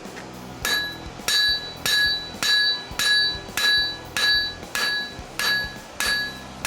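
Blacksmith's hand hammer striking a yellow-hot railroad spike on an anvil, drawing out the knife blade: about ten steady blows, a little under two a second, each with a bright metallic ring.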